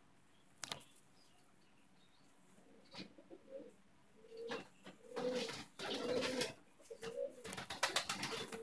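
Pigeon cooing repeatedly in low, short coos from about four seconds in. Bursts of loud rustling noise come with them in the middle and near the end.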